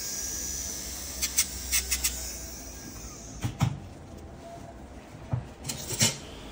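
A small electric podiatry nail drill with a sanding disc whirring faintly and winding down over the first two seconds or so. It is followed by scattered sharp clicks and taps of instruments being handled and set down.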